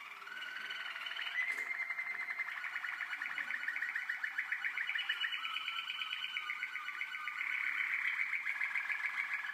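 Young Waterslager (Malinois) song canaries singing continuously: long runs of rapidly repeated notes in rolls and trills, the pattern changing every few seconds and growing louder near the end.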